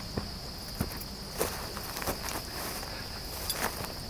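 Evening insect chorus, a steady high trill, with scattered light clicks and rustles close by.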